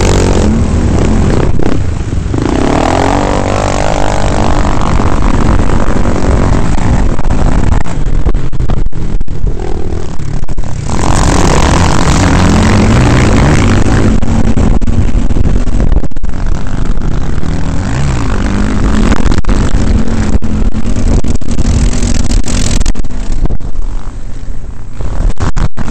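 Quad bike (ATV) engine running hard on a dirt track, its revs rising and falling with the throttle, over a loud rushing noise from wind and terrain. The sound is loud throughout.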